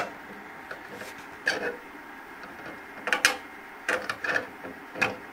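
A hand tool and a small latch clicking and clanking against the sheet-metal panels of the Fusion3 F400 3D printer as a part is fitted: about six sharp, irregularly spaced knocks, several with a brief metallic ring.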